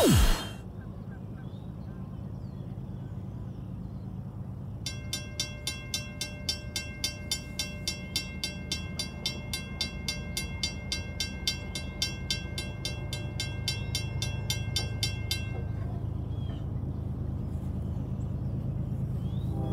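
Railroad grade-crossing warning bell ringing about two strikes a second, starting some five seconds in and stopping once the crossing gates are down. A low steady rumble runs underneath.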